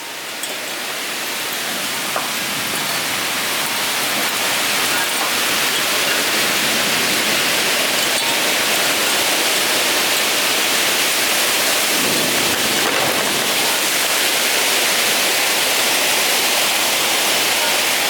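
Heavy rain pouring down in a storm, building over the first five seconds to a steady, loud rush.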